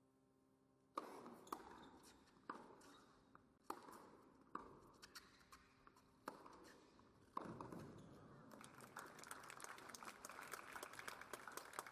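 Tennis rally on an indoor hard court: a serve about a second in, then racquets striking the ball roughly once a second, each crack with a short hall echo, the last shot at about seven seconds. The crowd then applauds the finished point.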